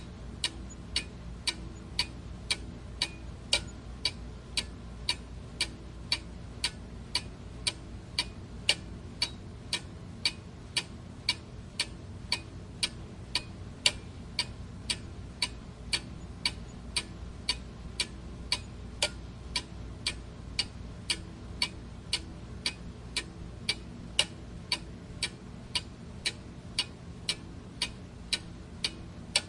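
Clock ticking steadily, about two crisp ticks a second, over a faint low hum.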